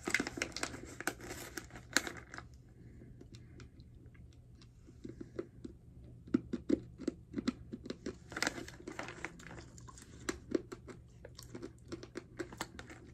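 Close-up crunching of a dry piece of edible clay being chewed: crisp crackles in clusters, thickest at the start and again past the middle.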